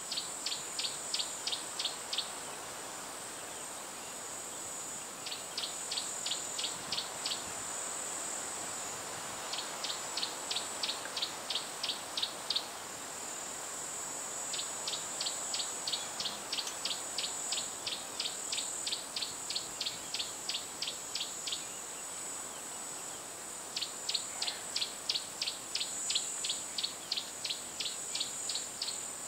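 Insects in the bush: a steady high-pitched drone, with runs of rapid evenly spaced chirps, about five a second, that start and stop five times.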